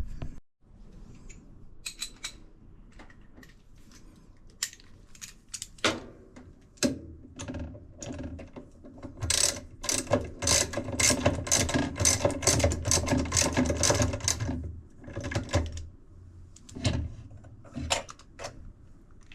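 A ratchet tool clicking as it undoes the single bolt that holds a Kenmore washing machine's agitator. Scattered clicks and knocks lead into a fast, continuous run of ratcheting that lasts several seconds, then a few more clicks near the end.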